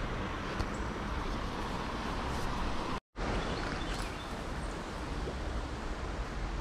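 Outdoor ambience: steady wind rushing on the microphone, with a few faint bird chirps. The sound cuts out completely for an instant about three seconds in.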